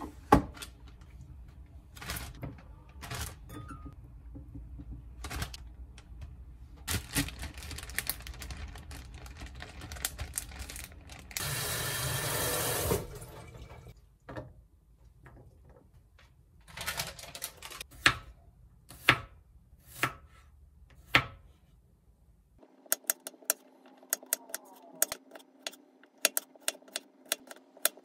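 Kitchen handling sounds: scattered light knocks and clicks, with a tap running for about a second and a half midway. In the last few seconds a knife slices garlic cloves on a bamboo cutting board in a quick run of sharp taps.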